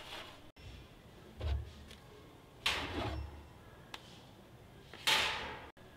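Metal spray-paint cans being handled: a few short clunks and clatters as cans come off a shelf and go into a wire shopping cart, the loudest near the end.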